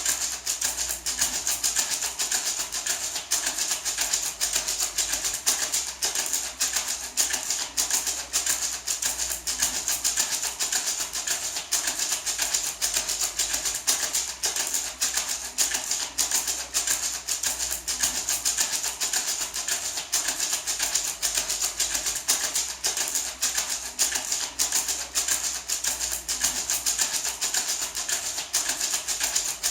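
Handmade gourd maraca shaken steadily in a fast, even rhythm, a continuous dry rattle of strokes.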